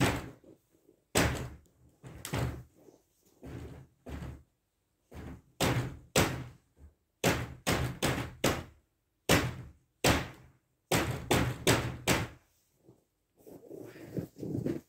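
A long irregular series of hard knocks and bangs, some in quick runs of three or four, stopping about a second before the end.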